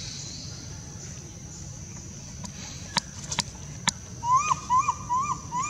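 Outdoor forest ambience with a steady high-pitched insect drone, a few sharp clicks around the middle, then from about four seconds in a bird's run of short chirping calls, each rising then falling, about three a second.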